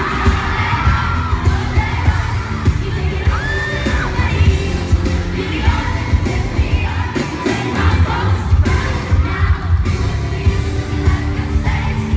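Live pop concert: a group of women singing over a band or backing track with a heavy, steady bass, and a crowd screaming and cheering along.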